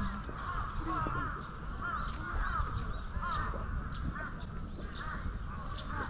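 Crows cawing repeatedly, many short calls overlapping, over a steady low rumble.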